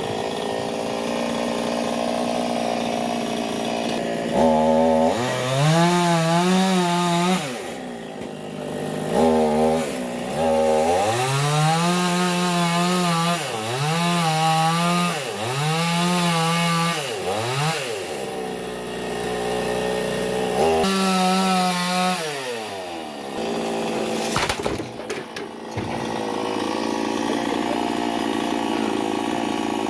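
Chainsaw running and being revved again and again, its pitch climbing and falling in about eight surges, with steadier running between them, as it cuts into a tree.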